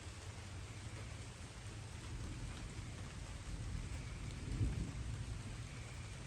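Light rain falling steadily, under a low rumble of distant thunder that swells briefly about two-thirds of the way through.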